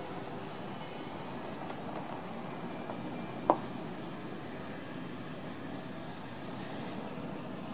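Steady high-pitched trilling of crickets over a faint low background rumble, with a single sharp click about three and a half seconds in.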